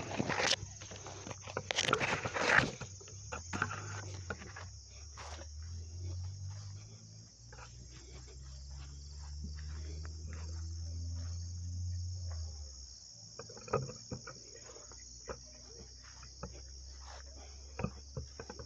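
Corn leaves and stalks rustling and brushing against the phone as someone pushes through tall corn, loudest in the first few seconds, then scattered rustles. A steady high chorus of crickets continues throughout, and a low rumble swells in the middle and fades out.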